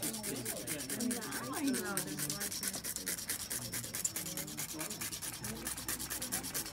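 A cinnamon stick being grated on a long rasp grater, with quick, even scraping strokes at about six a second.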